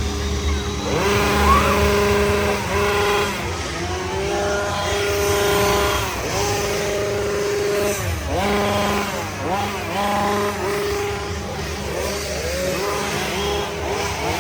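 Several chainsaw engines running at once, overlapping, held at a steady high pitch and repeatedly dipping and rising again as they are revved.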